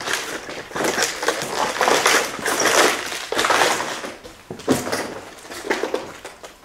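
Footsteps crunching and crackling over rubble, fallen plaster and debris on a floor, in a run of gritty steps about a second apart that fade toward the end.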